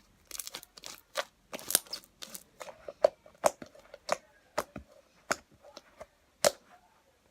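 Slime being squeezed and worked by hand, giving an irregular run of sticky clicks and pops, a few of them loud.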